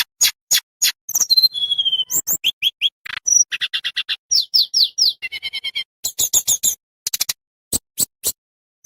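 Tledekan bambu songbird singing: a rapid run of sharp, clicking chips mixed with short falling whistled notes, delivered in bursts with brief silent gaps.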